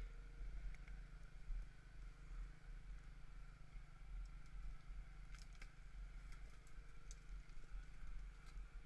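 A muffled engine idling with a low, steady rumble, with a few faint clicks.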